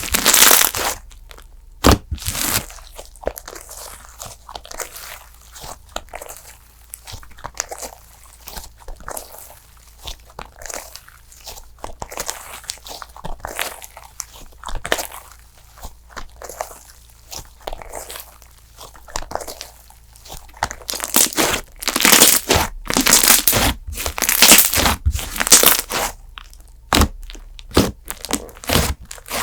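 Hands kneading and poking PBJ cream slime, making a string of small sharp pops and crackles. It is sparse and soft through the middle and denser and louder near the end.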